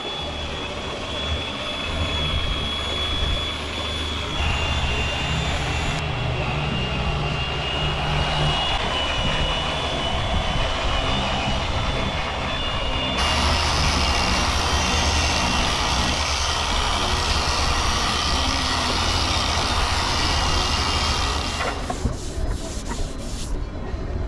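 Electric orbital sanders running against a boat's painted hull, a steady motor whine over the hiss of the pad on the paint: sanding the topcoat before the next coat.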